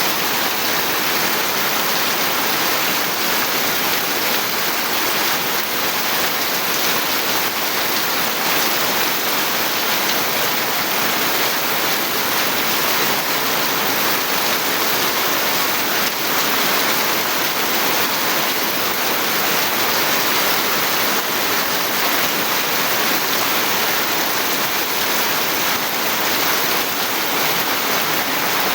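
Steady heavy rain pouring down, an even unbroken hiss.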